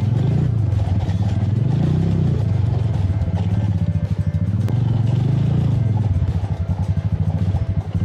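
Motorcycle engine running as the bike is ridden, its pitch rising and falling with the throttle and dropping to a pulsing beat at lower revs about four and seven seconds in. Background music plays along with it.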